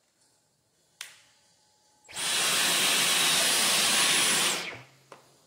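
A click about a second in, then a Dyson V15 cordless stick vacuum's motor starts and runs with a rush of airflow and a thin, steady high whine for about two and a half seconds before spinning down.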